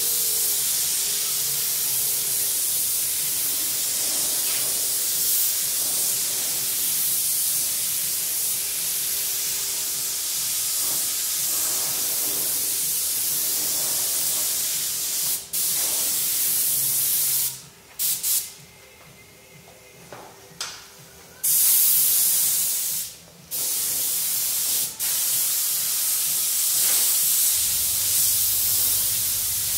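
Compressed-air paint spray gun hissing steadily as it sprays the doors. In the second half it stops and starts several times as the trigger is released, with one pause of about three seconds.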